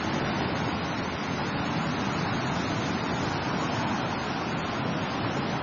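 Steady rushing noise of sea surf washing in, even throughout.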